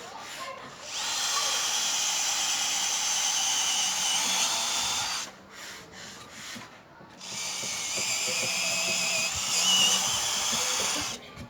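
Electric hand power tool in a woodworking shop running with a high whine in two runs of about four seconds each, stopping briefly in between.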